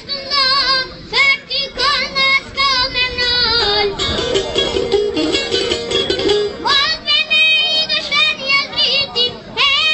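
A boy singing a melody with vibrato over instrumental accompaniment; about four seconds in the voice drops out for a short instrumental passage, then comes back in.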